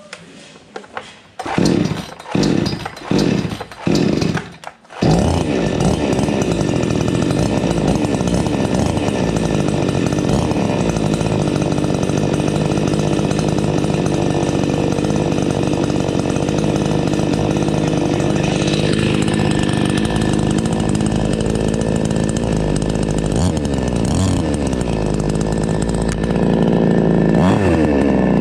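iBell two-stroke petrol chainsaw being pull-started: four short bursts as the starter cord is yanked, then the engine catches about five seconds in and runs steadily at idle. A few brief throttle blips come later, and it runs a little louder near the end.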